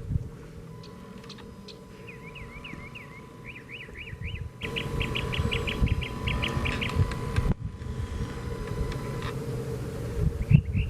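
A songbird calling in quick runs of repeated chirps, starting about two seconds in and louder in the middle, over a steady low hum and low rumbling noise.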